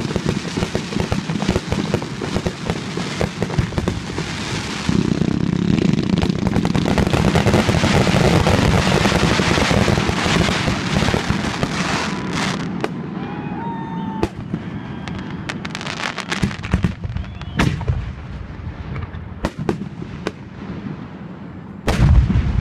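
Fireworks display: aerial shells bursting in a rapid barrage of bangs and crackle, loudest in the first half. After that come separate booms a second or two apart, and a heavy bang near the end.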